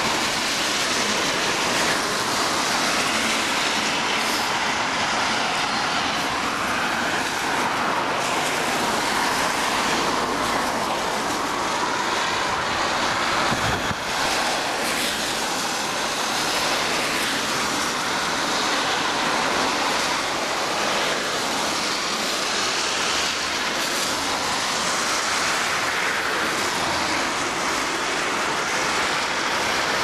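Steady hiss of cars passing on a wet road, tyre spray swelling and fading as each goes by, with rain falling.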